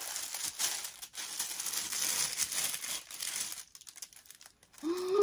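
White tissue paper rustling and crinkling as it is handled and folded back inside a gift box, for about three and a half seconds, then a few faint soft touches. A short hummed "mm" of voice comes near the end.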